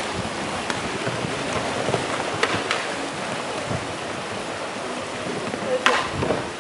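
A steady, even rushing hiss of water, broken by a few sharp clacks, the loudest near the end.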